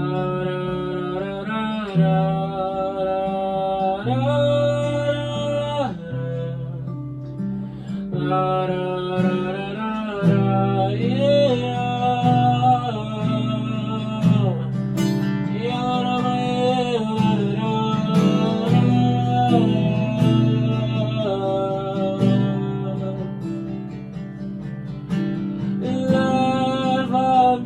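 Acoustic guitar strumming chords, with a wordless sung melody gliding over it.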